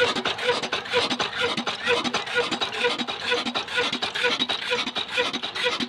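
Old black diesel engine of the Ruston type running steadily, with an even beat about twice a second over a dense mechanical clatter.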